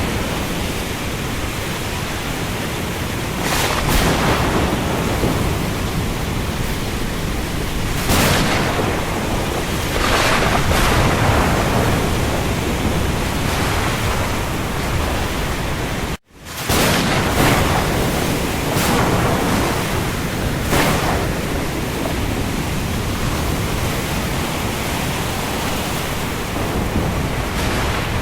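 Heavy rain falling on the open sea: a dense, steady hiss that swells every few seconds. It cuts out for a split second about halfway through, then fades back in.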